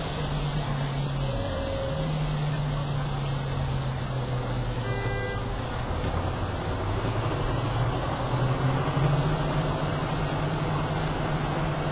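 Engine of a competition pulling tractor running, its pitch dipping briefly about a second in and climbing again from about seven seconds, loudest near nine seconds.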